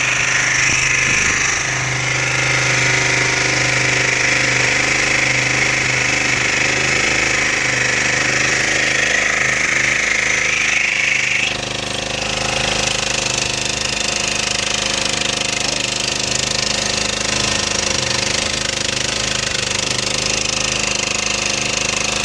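Small generator-set engine running steadily with a rattling, knocking clatter. About eleven seconds in, a high whine in the sound drops away and the running note shifts slightly.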